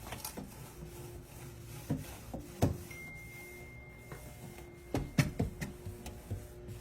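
Rubbing and scrubbing against the inside of a microwave, with scattered sharp knocks and clicks, the loudest about two and a half seconds in and a cluster about five seconds in.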